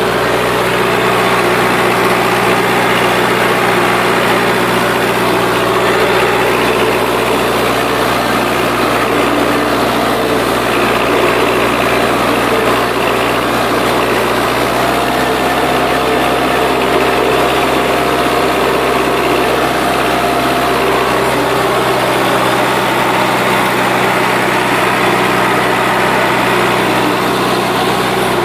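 Rakovica 65 tractor's diesel engine running steadily as it pulls a three-furrow plough.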